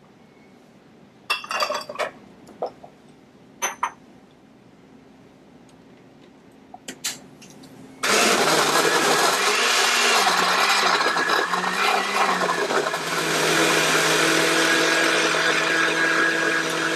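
Hamilton Beach Power Elite blender starting about halfway through and running steadily, crushing ice and frozen fruit into a smoothie. Its pitch dips and wavers a few times as the blades work through the ice, then holds steady. Before it starts, a few short clatters as ingredients go into the glass jar.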